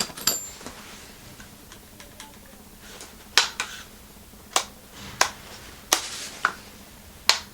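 A series of sharp, separate clicks and clacks, about seven of them spread unevenly over several seconds, typical of small hard objects being handled.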